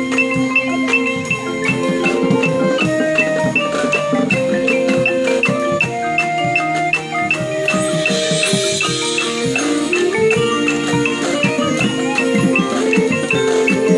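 A marching band's front ensemble playing, with marimbas, xylophone and bells carrying the tune over sustained notes and drum hits. A brief shimmering swell comes about eight seconds in.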